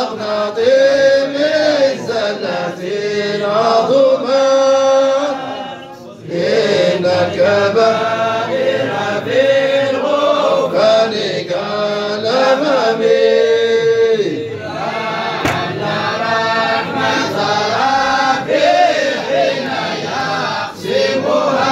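Background vocal music: a chanted song sung in phrases, with a brief break about six seconds in.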